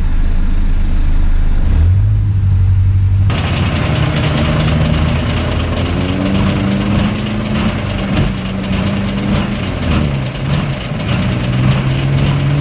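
Off-road 4x4 engines driving on a muddy track. First comes a steady low engine drone whose revs step up about two seconds in. Then, after a sudden cut, a small off-road 4x4's engine revs up and down as it pushes through the mud.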